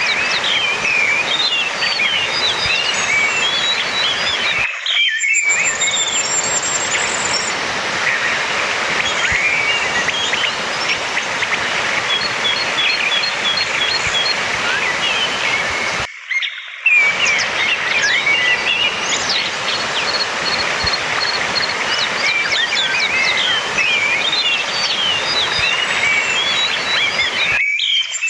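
Orange-headed thrush singing a busy, varied run of chirps and whistles, with quick repeated notes and a fast high trill, over a steady rushing background noise. The sound drops out briefly three times, about every eleven seconds, as the looped recording restarts.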